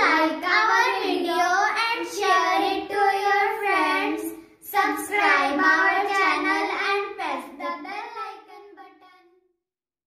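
Children singing a short chant-like tune with long held notes, stopping about nine seconds in.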